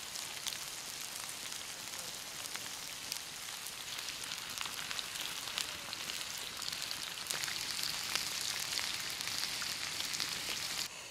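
Crabs sizzling on a hot stone slab over a wood fire: a steady frying hiss dotted with many small crackles, cutting off abruptly near the end.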